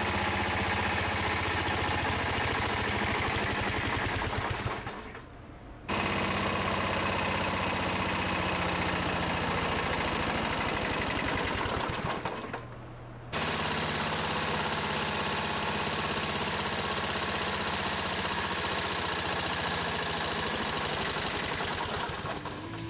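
Toro Recycler lawn mower's single-cylinder engine running steadily with a rapid clatter, lubricated with Head & Shoulders shampoo in place of motor oil and foaming out of the crankcase. The sound breaks off twice for about a second and fades near the end.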